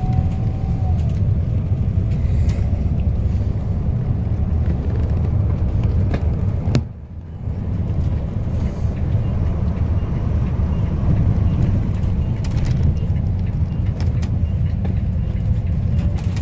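Steady low engine and road rumble of a school bus under way, heard from inside the cabin, with scattered light rattles. About seven seconds in, a sharp click and a brief dip in the rumble, lasting about a second.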